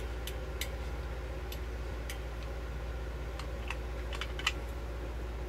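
Caulk gun being squeezed repeatedly on a tube of 100% silicone, a string of irregular sharp clicks from the trigger and plunger rod as she pumps to get the silicone flowing. A steady low hum runs underneath.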